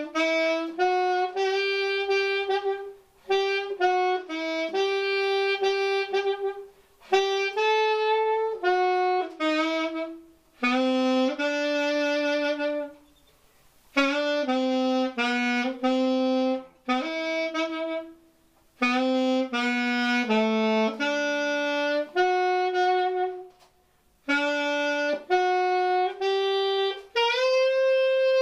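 Unaccompanied solo saxophone playing the main melody of a norteño ballad, one clear held note after another in short phrases separated by brief pauses.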